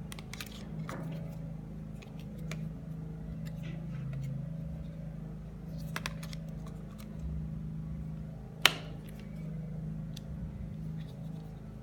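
Handling sounds of a phone unboxing: scattered light clicks and rustles of packaging and plastic, with one sharp click near the end, over a steady low hum.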